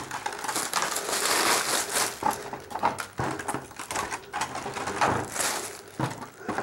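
Clear plastic bag crinkling and rustling on and off as a tangle of copper winding wire from a stripped transformer is pushed into it by hand.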